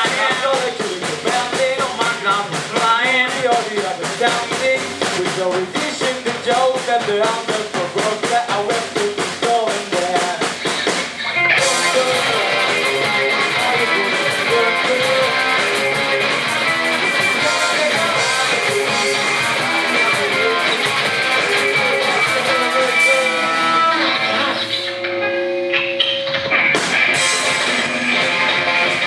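Rock band playing an instrumental passage with guitars and drums. The full band comes in harder about eleven seconds in, then drops back briefly to a held note near the end before kicking in again.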